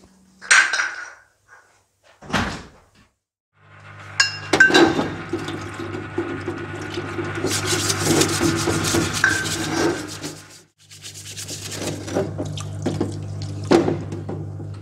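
Water running and splashing in a parts-washer sink as a brush scrubs anodized aluminium fork lowers, over a steady hum from the washer's pump. The hum and scrubbing start about four seconds in and drop out briefly near the end. Before that come a couple of short knocks.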